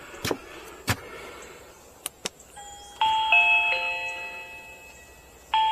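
Reolink video doorbell being tried out: a few clicks, a short beep, then its electronic chime plays a falling three-note tune about three seconds in, which starts again near the end.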